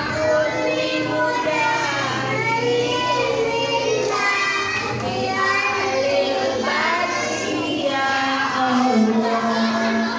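A group of young children singing together, many voices overlapping, with some notes held.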